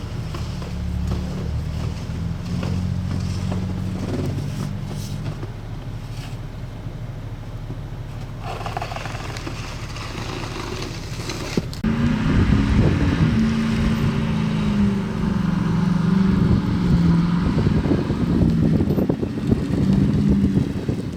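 A vehicle's engine and road noise running steadily, with wind on the microphone. About twelve seconds in it gets suddenly louder, with a stronger, wavering engine drone.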